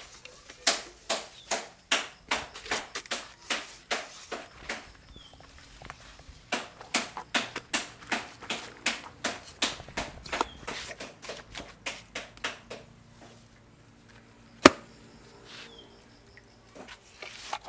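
Gloved hands slapping and pressing wet clay, a quick run of short slaps at about three a second that pauses briefly near the middle and thins out towards the end. One sharp knock, louder than the slaps, comes about two-thirds of the way through.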